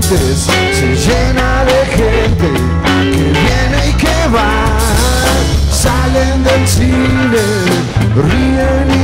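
A rock band playing live: a drum kit, bass guitar and acoustic guitars keep a steady beat, with a wavering lead melody over them.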